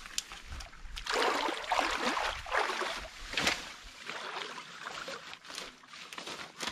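Shallow stream water sloshing and splashing as a person wades and pushes leafy branches down into a stick dam. It is loudest from about one to four seconds in, then settles to softer splashing and trickling.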